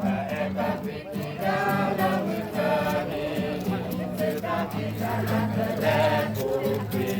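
Music: a group of voices singing together in long held notes over a steady low backing note.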